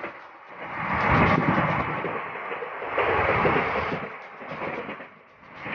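Wind rushing and buffeting over the microphone at the open door of a moving train, swelling and fading in gusts every couple of seconds.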